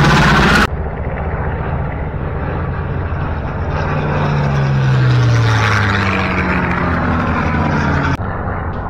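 Piston-engine propeller airplanes flying low past overhead: a loud engine drone whose pitch slides down as each one goes by. The sound changes abruptly twice, about a second in and near the end.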